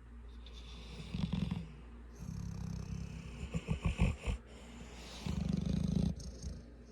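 A young pet snoring in its sleep: four snores, the third breaking into a quick flutter.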